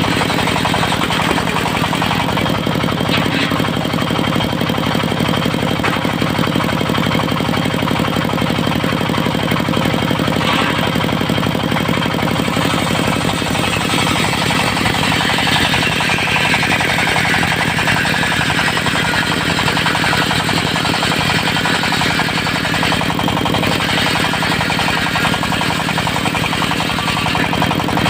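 Diesel engine running steadily, driving a circular sawmill blade. For several seconds in the middle, a high saw whine dips in pitch and climbs back, as the blade cuts through mahogany.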